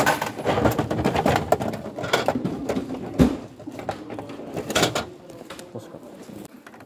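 Plastic clattering and knocking as a gashapon capsule is handled at the capsule-toy machines, with one loud knock about three seconds in.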